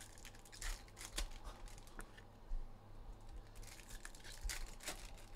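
Trading cards being handled and stacked by hand, with faint crinkling of a foil pack wrapper and a handful of light taps and clicks of card stock.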